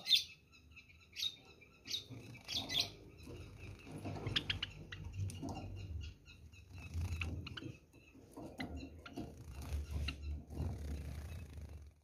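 Caged Java sparrows chirping in short, repeated calls, most often in the first few seconds, with a few sharp clicks about four seconds in and a low rumble underneath.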